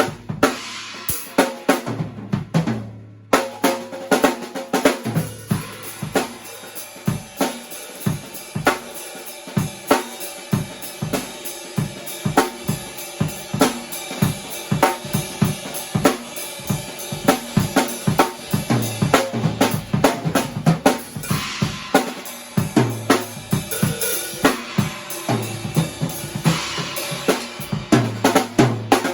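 Drum-led music with a steady beat of kick, snare and cymbal hits over a bass line.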